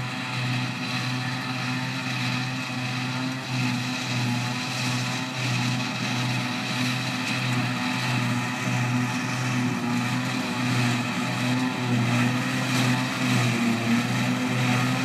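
John Deere 6810 self-propelled forage harvester and John Deere 6900 tractor working together, chopping grass silage and blowing it into the tractor's trailer. Their engines run as a steady drone that grows a little louder toward the end as the machines come closer.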